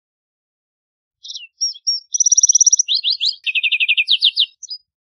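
Lark sparrow singing one song phrase that starts about a second in: a few short notes, then a fast high trill, then quick down-slurred notes and a lower buzzy trill, ending with a couple of short notes.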